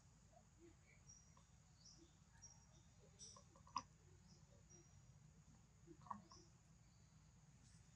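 Near silence: faint outdoor ambience with a few short, high chirps and a single sharp click near the middle.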